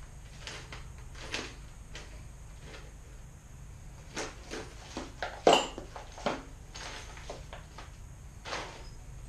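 Scattered clicks and knocks of hands and tools working on a sheet-metal blast cabinet as screws and nuts are fitted, with the loudest knock about five and a half seconds in.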